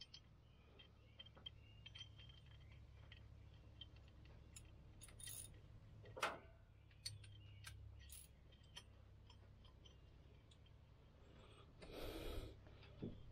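Faint scattered clicks and light metallic ticks of small valve-train parts being handled on an exposed Chevy V8 cylinder head, with a sharper click about six seconds in and a brief clatter near the end.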